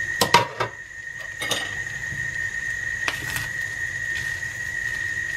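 A metal fork clinking against a stainless steel frying pan while tossing rice noodles, in three short bouts of clinks: one near the start, one about a second and a half in, and one about three seconds in.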